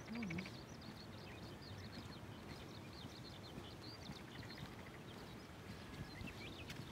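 Small birds chirping on and off over a faint, steady outdoor background hiss.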